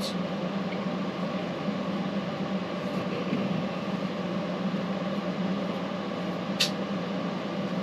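Room air conditioner running with a steady hum. A single short click sounds once, about six and a half seconds in.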